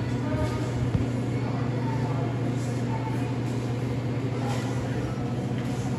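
Steady low machine hum, with faint background voices and one small click about a second in.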